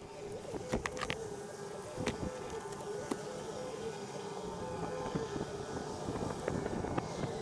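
Scattered clicks and taps of hands and tools working on a car door, over a steady humming tone.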